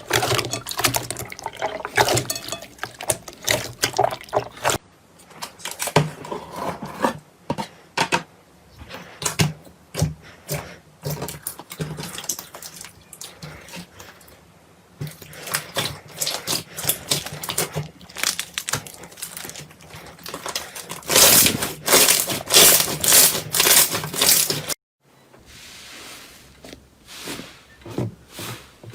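Slime being handled by hand: rapid wet clicks, pops and squelches. The sound changes abruptly several times, with the loudest stretch of crackling a little past two-thirds of the way through.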